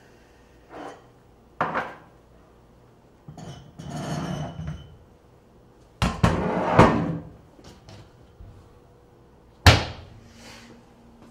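Kitchen cabinet and glass containers being handled: a string of knocks, clinks and rattling scrapes a second or more apart. The longest and loudest comes a little past halfway, and there is a sharp knock near the end.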